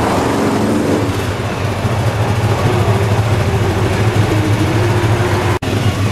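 A group of motorcycles idling together in a steady low rumble. A car passes close by at the start, and the sound cuts out for an instant near the end.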